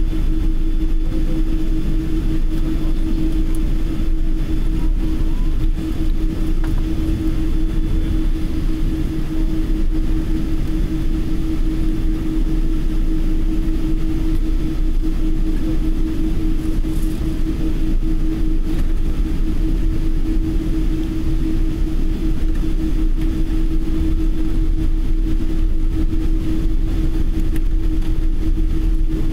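Jet airliner cabin noise while taxiing: the engines at low taxi power give a steady deep rumble with a constant low hum over it.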